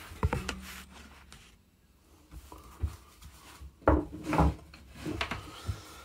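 Hands handling plastic electrical boxes and wires on a wooden board: scattered clicks and knocks with some rubbing, a few sharp taps about half a second in and a louder cluster of knocks about four seconds in.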